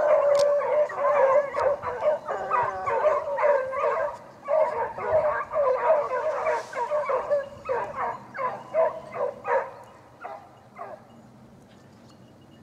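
A pack of beagles and other scent hounds baying in chorus, many voices overlapping, while working the quarry's scent line on a rapproché. The cry thins out about ten seconds in and falls away.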